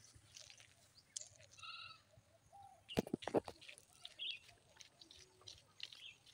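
Faint rural outdoor ambience with scattered bird chirps. A short animal call comes about one and a half seconds in, and a few knocks follow around three seconds in.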